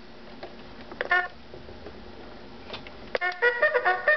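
Rhythm cat alarm clock's alarm going off: a short snatch of its electronic melody about a second in, then a few clicks and the melody starting in earnest near the end, triggered as the alarm hand is turned to the set time.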